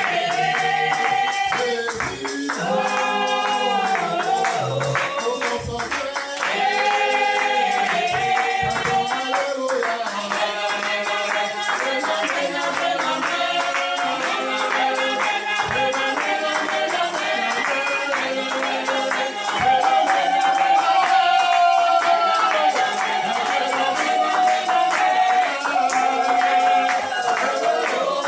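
Worship song: singing over a steady beat of light percussion.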